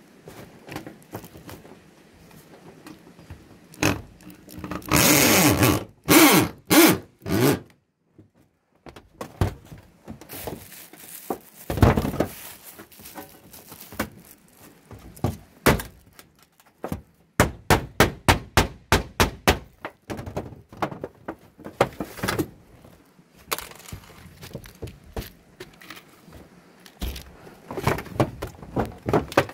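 Corded electric drill driving screws into thin metal roofing sheet in short bursts, the longest a few seconds about five seconds in. In between come sharp knocks, a quick even run of clicks, and scraping as the sheet metal is handled and pressed down.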